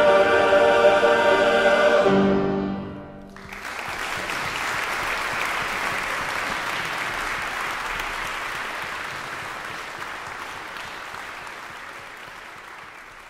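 Men's chorus singing a loud final chord that cuts off about two seconds in and rings briefly in the church's echo. Then the audience breaks into steady applause, which slowly fades away.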